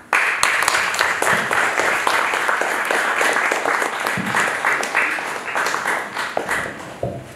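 Audience applauding, starting abruptly and tapering off near the end.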